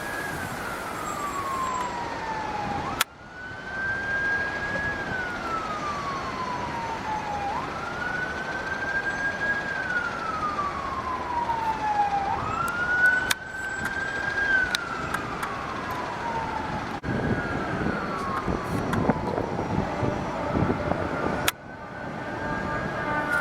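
Emergency vehicle siren on a wail: the tone climbs quickly, holds, then slides slowly down, repeating about every four to five seconds. A second siren overlaps it in the later part, and the sound breaks off abruptly a few times.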